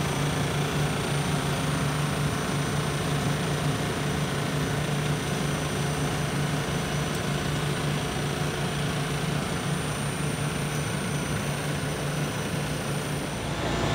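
Grape destemmer running, its roller table and stem waste auger turning. It makes a steady mechanical drone with a low hum.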